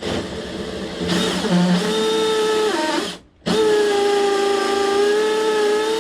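Power drill boring a hole down through the floor to the basement. It spins up in a steady whine, slows and stops about three seconds in, then runs again steadily for a few more seconds.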